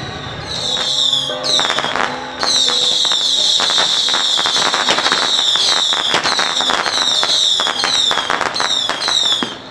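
Firecrackers going off in a dense, loud crackle, with high whistles that fall in pitch over and over. It starts about half a second in and breaks off just before the end.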